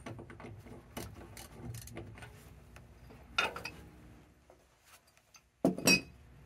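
Light metallic clicks and clinks from gloved hands working an oxyfuel torch under a steam locomotive tender, with two short, louder bursts about three and a half and six seconds in.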